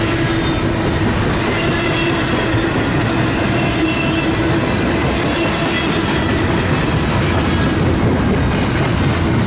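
CSX intermodal freight train's container cars rolling past at speed: a steady rumble with wheel clatter over the rail joints.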